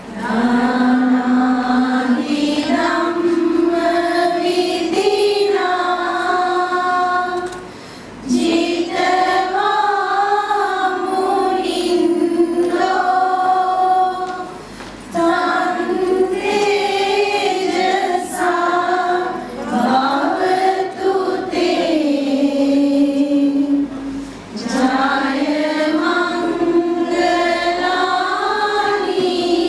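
Voices singing a slow devotional chant, long melodic phrases of about five to seven seconds broken by short pauses.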